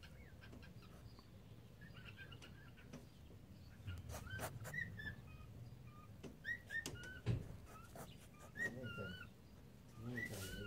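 Cockatiels chirping: short, pitch-bending calls, scattered at first and coming more often after about four seconds, with a few sharp clicks in between.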